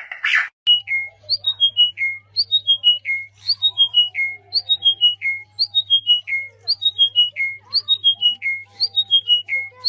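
Bird-like chirping: a quick phrase of notes stepping down in pitch, repeated very evenly about once a second. A short loud burst comes at the very start, and a faint steady low hum runs under the calls.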